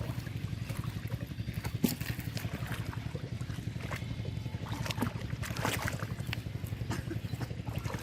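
A motor running steadily with a low, rapid throb, with scattered short splashes and clicks from muddy water.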